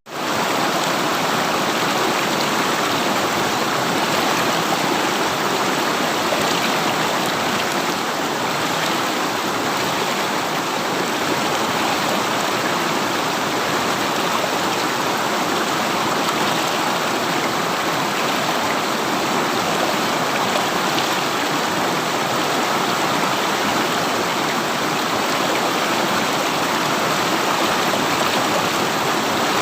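A river flowing: a steady, unbroken rush of running water.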